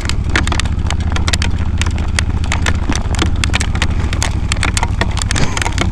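Hail pelting down: stones clack against hard surfaces close by in a dense, irregular patter, over a steady low rumble.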